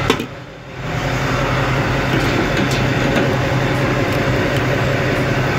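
Diesel truck engine running steadily: a low, even hum with a rush of noise over it.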